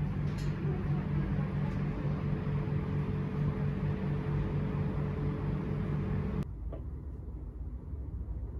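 A steady machine hum with a pulsing low tone and a faint higher whine, which cuts off suddenly about six and a half seconds in, leaving a quieter low rumble.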